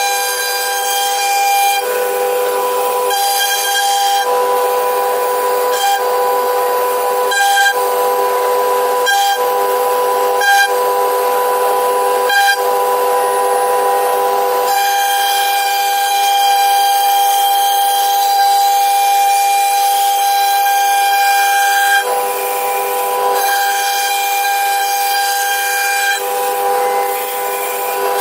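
CNC router spindle running with a steady high whine over a hiss of cutting, carving wood. The sound breaks off sharply for a moment every few seconds.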